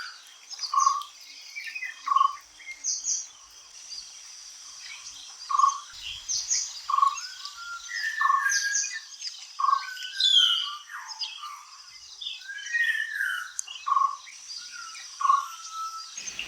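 A forest chorus of several birds calling and singing over one another, with a short low note near 1 kHz repeated again and again among higher chirps and whistled glides. A faint steady insect trill runs underneath.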